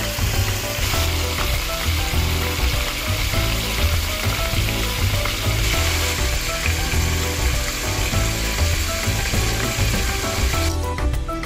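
Pieces of beef and fat frying in a pot, a steady dense sizzle, with background music and a low beat underneath. The sizzle cuts off just before the end, leaving the music alone.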